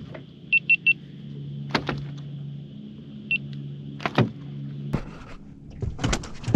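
Electronic beeps, three quick ones and then a single one, over a steady low motor hum, with sharp knocks and thumps on the boat's deck as a landed flathead is handled, most of them near the end.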